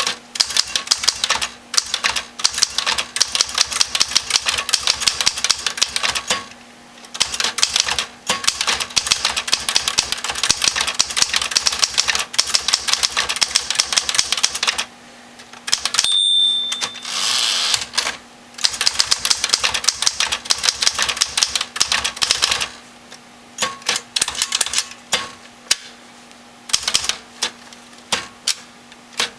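Smith-Corona manual typewriter being typed on: quick runs of sharp keystroke clacks with short pauses. About halfway through, the margin bell rings once and the carriage is pushed back for a new line. Then the typing resumes, slower and more scattered near the end.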